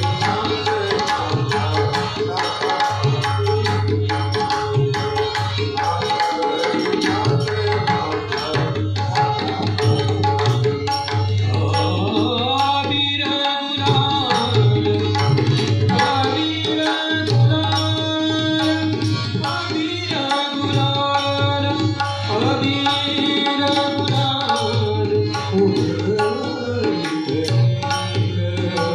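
Tabla and mridang drumming together in a devotional Marathi abhang, with rapid, steady strokes over a sustained melodic accompaniment.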